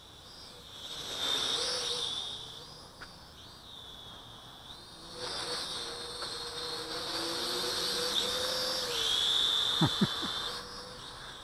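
1505 Tarantula Spider mini quadcopter's motors and propellers whining in flight, the pitch wavering and rising and falling with throttle, swelling twice and gliding down near the end. Then a few quick blips, the transmitter signalling a change of flight rate.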